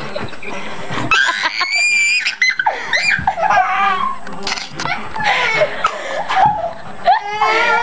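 Girls laughing and giggling hard, with high squeals; one held, high-pitched squeal about two seconds in.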